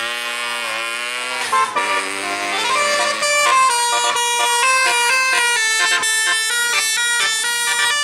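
A tour bus's 'telolet' multi-tone air horn playing a fast melody of short stepped notes, starting about three seconds in. Before that comes a sliding, wavering tone.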